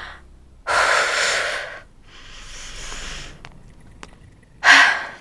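A woman breathing hard: a loud, sharp exhale about a second in, a softer breath after it, and another short, sharp breath near the end.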